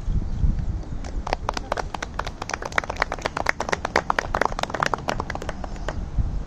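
A small group of people clapping, starting about a second in and dying away near the end.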